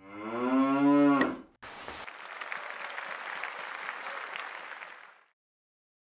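A dairy cow mooing once, a long loud call lasting about a second and a half. After a short gap, a few seconds of noisy hiss with faint crackles follows and fades out.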